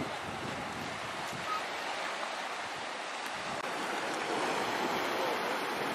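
Ocean surf breaking and washing over a rocky shore: a steady, even rush of waves.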